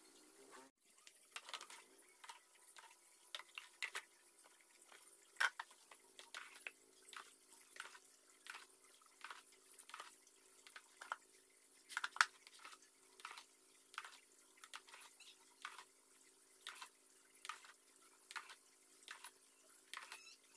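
Liquid sloshing and splashing in a plastic tub as gloved hands work a metal motorcycle engine cover around in it, in short faint splashes about once or twice a second.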